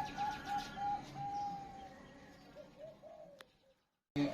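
Zebra dove (perkutut) cooing. It gives a quick run of short rising-and-falling notes, then one longer held note, then a few softer notes that fade out. There is a faint click, and the sound cuts out briefly near the end.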